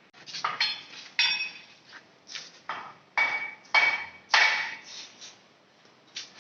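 A run of sharp metallic clanks and knocks, about eight to ten spread irregularly over several seconds, several ringing briefly like struck metal, the loudest a little past the middle.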